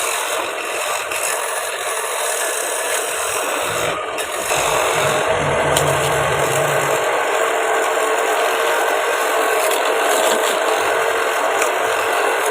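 Homemade wood lathe at work on a wooden plate blank: a continuous scraping rasp of wood being worked against the spinning piece, a little louder from about four and a half seconds in.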